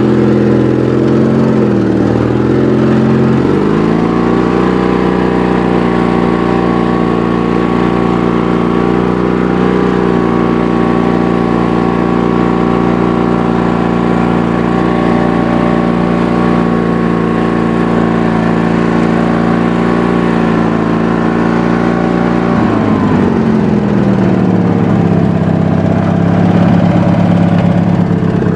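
Wheel Horse garden tractor's twin-cylinder Briggs & Stratton engine running evenly on both cylinders. It speeds up a few seconds in, holds a steady higher speed for about twenty seconds, then drops back to a lower speed near the end.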